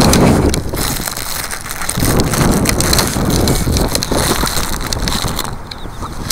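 Wind buffeting the microphone, with rustling, crunching noise.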